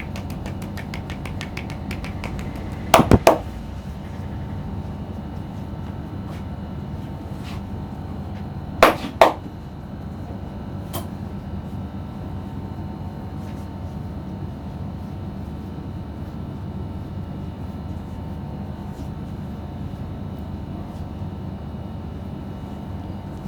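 Sharp percussive strikes of a head massage over a steady background hum: three in quick succession about three seconds in, two more about nine seconds in.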